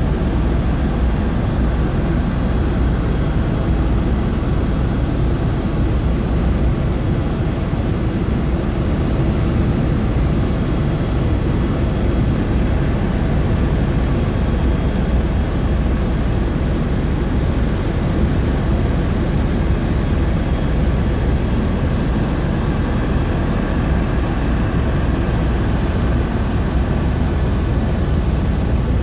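Steady engine and rotor noise heard from inside a helicopter cabin in flight, a constant deep drone.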